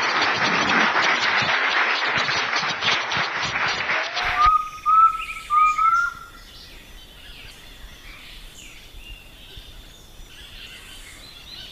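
Audience applauding, cut off suddenly about four and a half seconds in. Birdsong follows: a few loud curved whistled chirps, then fainter scattered chirps over a steady high tone.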